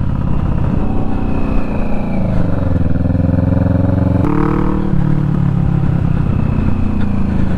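Kawasaki Vulcan S 650's parallel-twin engine running through a short Delkevic slash-cut exhaust, heard from the rider's seat. The engine note falls as the bike slows, changes abruptly about four seconds in, then runs on steadily as the bike pulls away.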